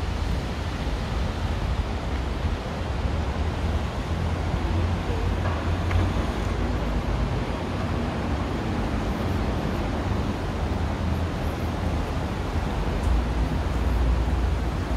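Steady rushing outdoor noise with a deep low rumble underneath, with no distinct events.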